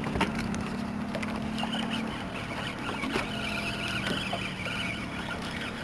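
Boat motor running with a steady low hum while trolling, under light clicks and knocks of handling on the boat. A higher whir joins about a second and a half in.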